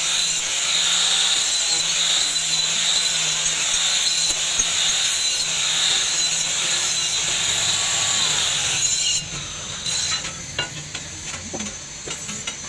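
Angle grinder with an abrasive disc grinding the steel blade of a meat cleaver: a steady high whine over a grinding hiss. It stops about nine seconds in, leaving a few light clicks and taps.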